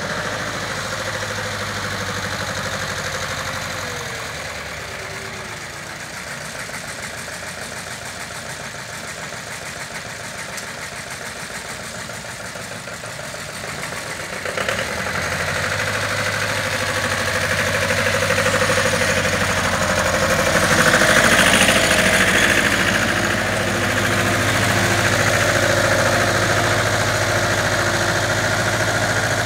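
Small three-wheeled utility truck's diesel engine running cold and smoking, first at a steady idle, then louder from about halfway through as it is accelerated and pulls away. The engine is being revved before it has warmed up, which is the wrong way to start a cold diesel.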